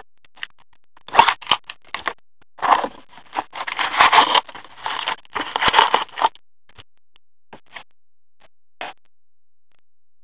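Crinkling, tearing plastic and foil wrapping as a sealed box of trading-card packs is opened and the packs are handled. It comes in bursts over the first six seconds, followed by a few faint clicks.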